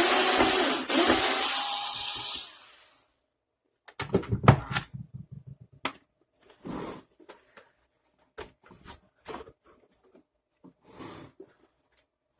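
Work on the plastic housing of a Hoover T2424 vacuum cleaner during disassembly: a loud rushing noise for about two and a half seconds, then a quick run of clicks about four seconds in, followed by scattered clicks and knocks of plastic parts being handled.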